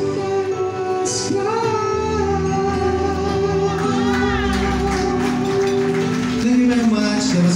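Live band music with a singer holding long, wavering notes over sustained accompaniment.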